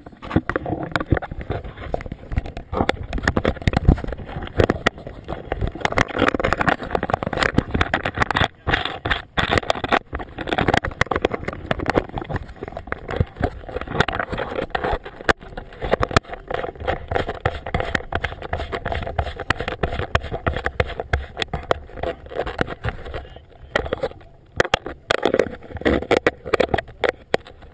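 Wind buffeting a boat-mounted camera's microphone, with an orange flag flapping and fluttering close by: a loud, irregular crackling rush with no steady tone.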